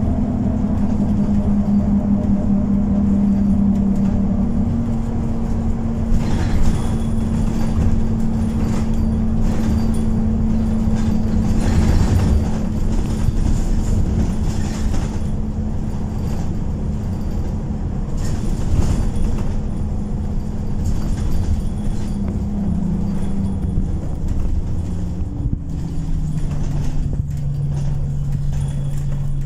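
Onboard sound of an Alexander Dennis Enviro200 single-deck bus on the move: a steady drivetrain drone with road rumble and scattered knocks and rattles from the body. The drone's pitch steps down twice in the last third.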